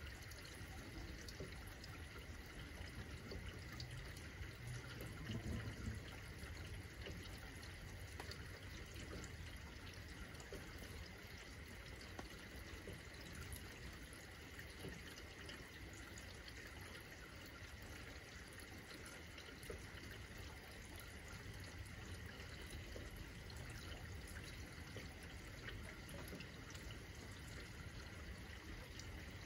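Steady rain falling, heard faintly, with a brief low swell about five seconds in.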